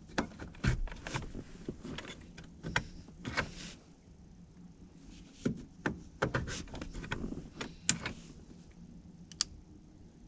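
Irregular clicks, knocks and small rattles of hands working an ignition switch and its plastic housing under a steering column, as the switch is taken out and its adjusting knob turned a couple of teeth out of alignment.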